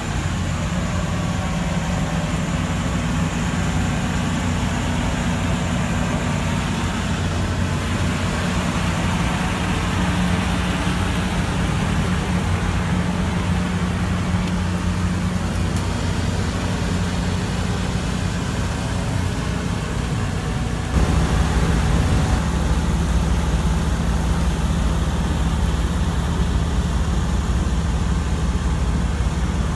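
Steady low mechanical hum over a background rush, which steps up louder and deeper about 21 seconds in.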